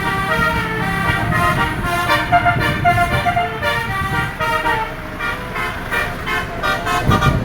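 Indonesian 'telolet' multi-tone bus horn playing a quick tune of short, stepped notes, over the low rumble of a running vehicle.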